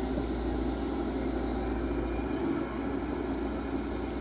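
Diesel engines of heavy construction machinery running steadily, a low even hum with no distinct strokes or revs.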